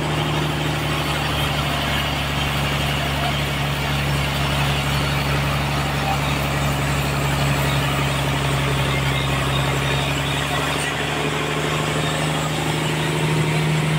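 Sawmill machinery running steadily: a constant hum with a dense mechanical noise over it, unchanged throughout.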